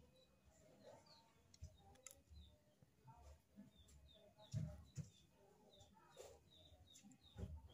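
Near silence: faint, rapidly repeated high chirps of small birds in the background, with a few soft knocks, the loudest about halfway through and another near the end.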